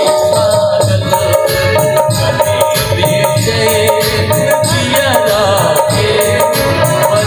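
Live Bhojpuri folk-song accompaniment: a harmonium and keyboard holding chords, a dholak drumming a steady beat, and a hand tambourine shaking its jingles in time.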